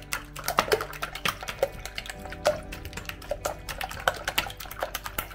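Wire balloon whisk beating eggs in a plastic mixing bowl: quick, irregular clicking and tapping of the tines against the bowl, several strokes a second. The eggs are only being lightly blended, yolk into white.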